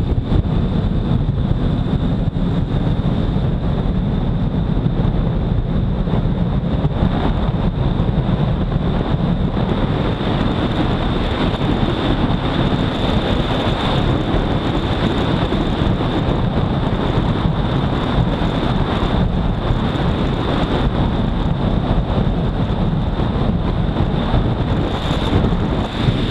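Heavy wind rush on the microphone of a Honda CBR250R ridden at speed, with its single-cylinder engine running steadily underneath. A thin, steady high whine sits above the noise.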